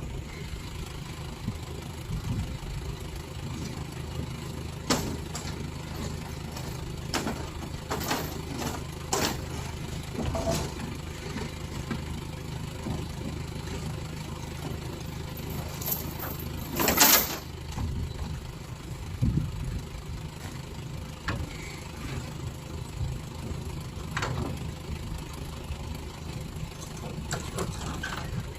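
Crane lorry's engine idling steadily, with scattered short knocks and clanks and one brief, louder burst of noise about seventeen seconds in.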